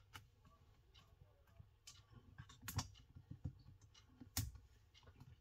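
Faint, scattered small clicks and taps as fingers handle and press on the battery and frame of an opened Samsung Galaxy Tab S2. Two sharper clicks come near the three-second mark and again past four seconds.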